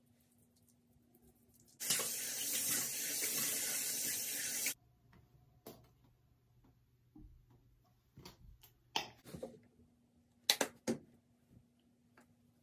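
A sink tap runs steadily for about three seconds, then is turned off. A few small clicks and knocks of handling follow, the sharpest two near the end.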